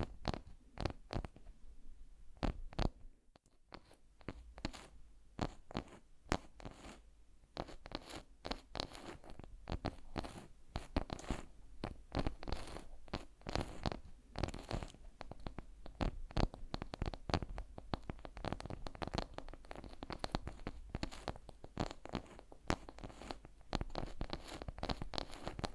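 Close-miked ASMR trigger sounds: a run of crisp crackles and clicks, scattered at first with a brief lull, then nearly continuous from about eight seconds in.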